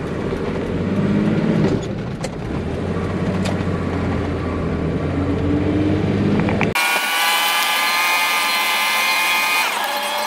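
Vehicle engine and road noise, a low steady drone, as the vehicle pulls away and drives up the road; the vehicle is a bit noisy. About two-thirds in the sound cuts off abruptly to a steady high-pitched whine of several tones.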